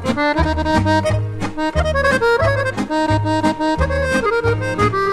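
Serbian folk ensemble led by accordion playing an instrumental passage: a running accordion melody over a steady, bouncing bass line and rhythm.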